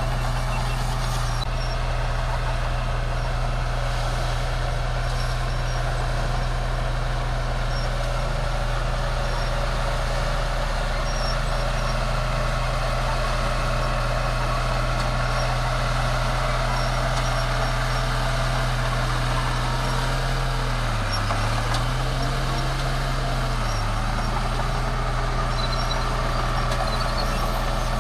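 A bulldozer's diesel engine running steadily under work. Its pitch drops briefly twice, once about three quarters of the way through and again a few seconds later.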